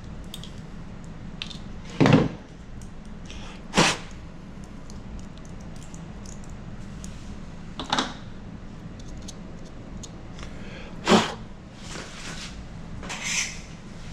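Objects being handled on a work surface: a few separate sharp knocks and clunks spread over several seconds, over a steady low hum.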